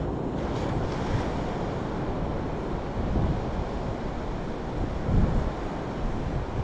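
Surf washing onto a sandy beach, a steady wash of waves, with wind buffeting the microphone in gusts, strongest about three and five seconds in.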